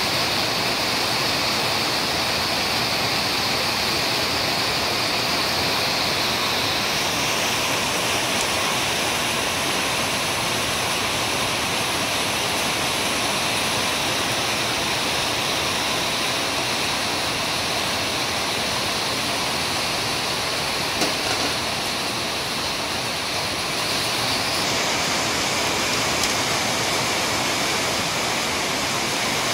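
Steady rushing hiss of a pot of chicken at a rolling boil on a gas burner, with two light knocks of utensils against the pot late on.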